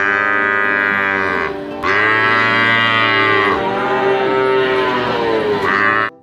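Water buffalo lowing: a long, loud moo that breaks off about one and a half seconds in, then a second long moo that runs several seconds and cuts off near the end.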